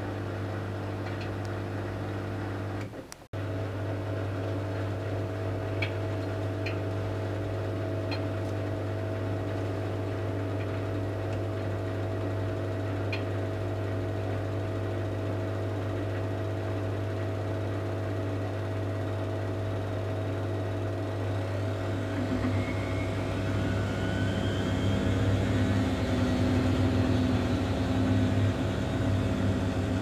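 Miele Softtronic W 435 front-loading washing machine on a Delicates wash, its drum motor humming steadily as the drum turns the sudsy load, with a few faint ticks. It cuts out for an instant about three seconds in, and in the last third grows louder with a whine that rises and falls as the drum picks up speed and slows again.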